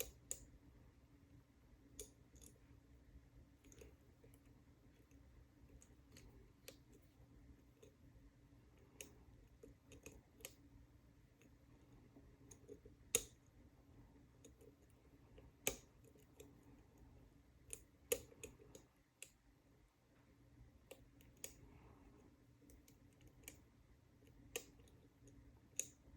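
Faint, irregular clicks of a lock pick and tension wrench working the pins of an all-brass Union padlock, with a few sharper clicks spaced several seconds apart.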